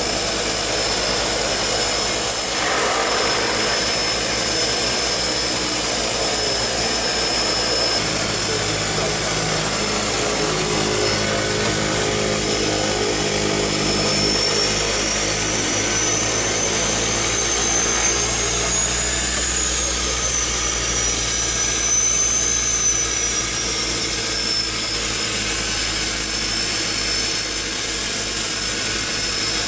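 Cockpit noise of a DHC-6-300 Twin Otter's Pratt & Whitney Canada PT6A turboprop engines running at low power on the ground: a steady drone and propeller beat with a high turbine whine. The whine rises and falls in pitch over several seconds midway through.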